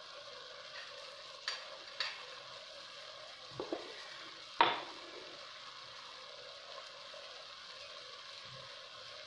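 Chopped onion and garlic frying gently in oil in a clay tagine pot: a faint, steady sizzle, with a few short clicks, the loudest about four and a half seconds in.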